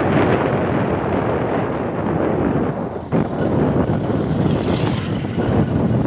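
Motorcycle engine running while riding on a dirt road, with wind buffeting the microphone; the sound dips briefly about halfway through.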